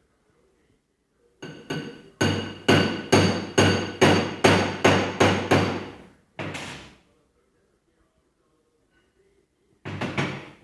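A hammer striking metal in a run of about a dozen ringing blows at two to three a second, then a pause and a couple more blows near the end. This is typical of driving oil seals into a hydraulic power steering box.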